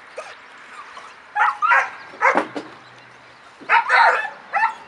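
A young German Shepherd puppy barking at an agitating helper: about six short, high-pitched barks in three clusters, the loudest pair near the end.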